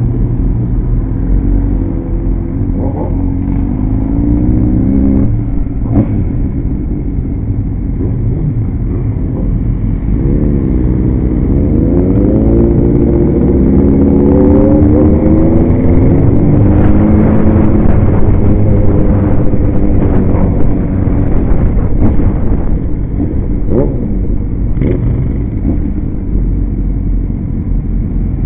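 Motorcycle engines on a group street ride, the nearest bike's engine note rising several times as it accelerates, over a steady low rumble from the pack.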